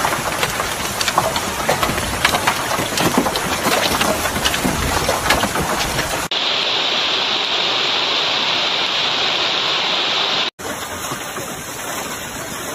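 Large hail and heavy rain pelting the ground, with a dense patter of sharp hailstone strikes. The sound changes abruptly about six seconds in to a steadier, hissing downpour, and changes again near the end.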